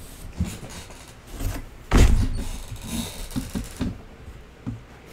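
Denim jeans and a cardboard box being handled: rustling of heavy cloth as the jeans are pulled out and stacked, with one loud thump about two seconds in and a few smaller knocks after it.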